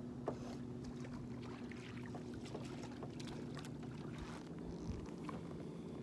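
Steady low hum on a fishing boat, with a few light knocks and clicks as a landing net and gear are handled to bring a fish aboard.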